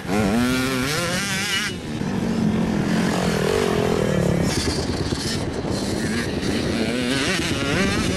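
Motocross dirt bike engines revving through corners, the pitch rising and falling quickly with the throttle, strongest in the first couple of seconds and again near the end.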